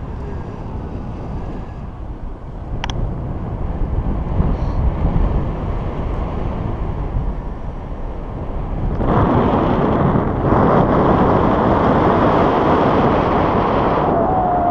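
Wind rushing over the microphone of a pole-mounted camera on a tandem paraglider in flight, a steady rumbling noise that grows louder about nine seconds in.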